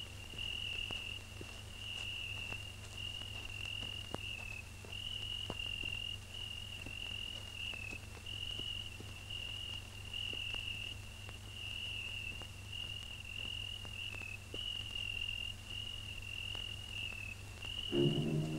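Crickets chirping in an unbroken run of high trills about a second each, over a low steady hum. Music comes in at the very end.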